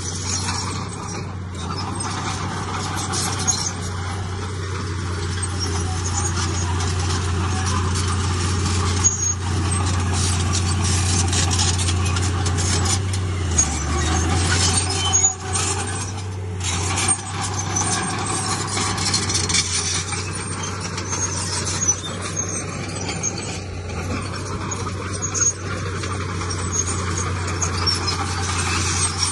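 Heavy diesel earthmoving machinery running steadily under load, with scattered metallic clanks and squeals. The engine note drops briefly near the middle.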